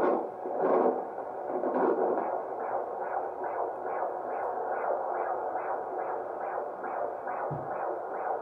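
A handheld fetal Doppler is playing a 17-week baby's heartbeat through its speaker. It is uneven for the first couple of seconds, then settles into a fast, even pulse of two to three beats a second. The heart rate reads 141, a happy baby.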